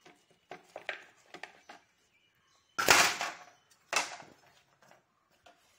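A baked flatbread-like snack being handled and turned over by hand on a plate: light clicks and rustles, then two loud, short rushes of noise about three and four seconds in.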